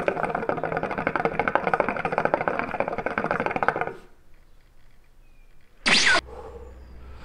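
Water bubbling steadily in the base of a Nargilem NPS shisha as a long draw is pulled through the hose, stopping about four seconds in. About six seconds in comes a brief, loud rush of air.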